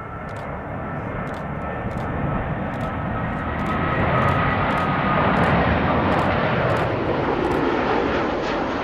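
Widebody jet airliner passing close, its engine noise growing louder over the first four seconds or so and then holding, with a faint high whine drifting slightly down in pitch as it goes by.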